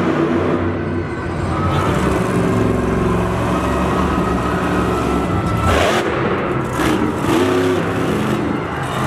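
Monster truck's supercharged V8 engine revving hard, its pitch rising and falling as the truck powers over the dirt and up onto its front wheels.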